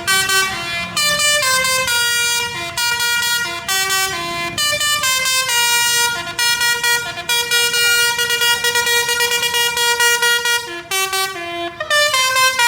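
Indonesian bus 'telolet' multi-tone musical air horn playing a melody of stepped notes in short phrases, loud and clear.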